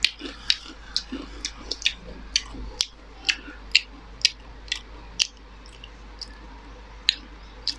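A person chewing crunchy fried food close to the microphone: sharp crunches come about twice a second, then thin out over the last few seconds.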